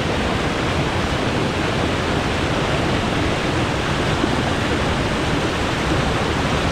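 Loud, steady rush of falling water from a waterfall close by.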